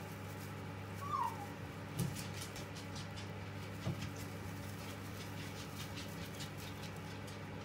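Long-haired hamsters shuffling in straw bedding, a scatter of faint dry crackles and rustles, over a steady low hum. A short falling whine-like squeak comes about a second in, and two soft thumps near two and four seconds in.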